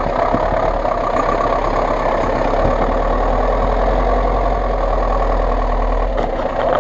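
GAZ-66 army truck's engine running steadily as the truck crawls past through mud and snow.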